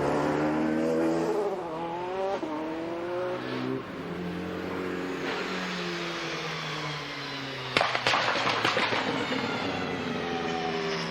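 Toyota GT-One's twin-turbocharged 3.6-litre V8 racing engine running and revving, its pitch rising and falling repeatedly. About eight seconds in there is a burst of sharp cracks.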